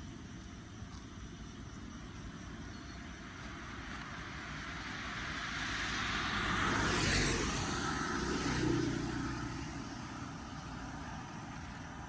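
A vehicle drives past, building to its loudest about seven seconds in and then fading away, over a steady background hiss.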